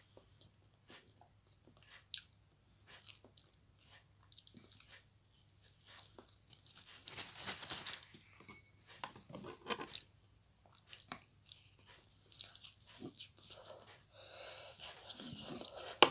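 A person chewing and biting food close to the microphone, with soft crunches and small wet mouth clicks. There are a couple of longer breathy stretches, about seven seconds in and again near the end.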